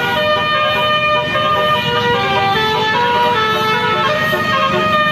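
Basuri telolet horn playing a tune: several pitched horn tones stepping from note to note without a break.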